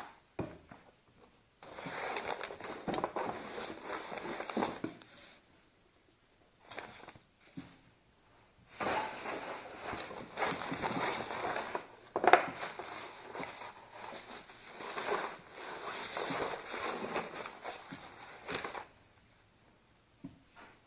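Paper and cardboard being rustled and shuffled by hand: irregular bursts of crinkling as sheets and folders are lifted and set down, with a sharp slap about twelve seconds in.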